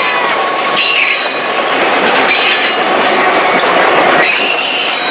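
Railroad passenger coaches rolling past close by: a steady loud rumble and clatter of steel wheels on the rails, with high wheel squeal from about a second in.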